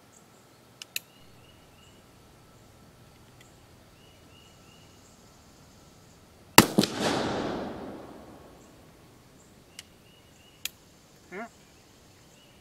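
An Uberti Walker .44 cap-and-ball revolver fires once, about halfway through: a sharp black-powder report followed by a rolling echo that dies away over more than a second. Short metallic clicks, the hammer being cocked, come about a second in and again near the end.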